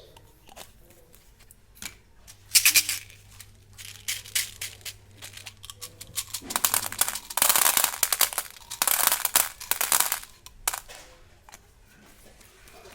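Plastic candy wrappers crinkling and rustling in several short bursts as they are handled, with small clicks and taps between them.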